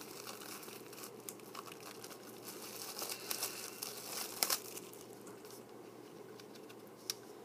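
Plastic wrapping of a CD crinkling and tearing as it is handled, in scattered crackles that are busiest about three to four and a half seconds in and thin out after that.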